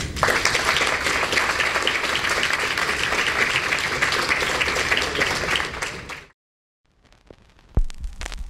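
Audience applauding, a dense patter of many hands that fades out about six seconds in. After a short silence, a low thud near the end.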